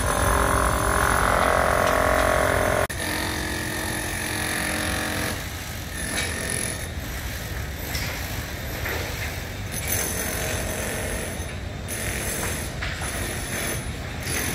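Mechanical machine noise: a loud whine with several tones for about three seconds that cuts off suddenly, then a lower whine that fades out after a couple of seconds, leaving a steady rumbling din.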